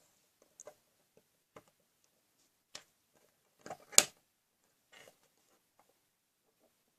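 Small plastic Lego pieces being handled and pressed together: scattered light clicks and taps, with one sharper click about four seconds in.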